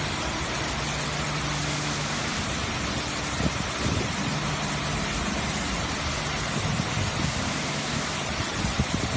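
Touchless truck wash gantry's high-pressure water jets hissing steadily as they spray a lorry, with a low mechanical hum underneath that comes and goes. A few low thuds come about three and a half seconds in and again near the end.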